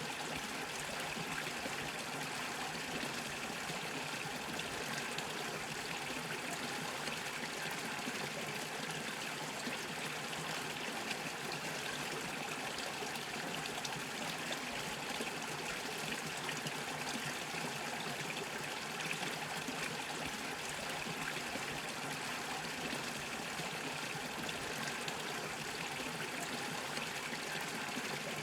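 Small brook bubbling and trickling over stones, a steady flow of water.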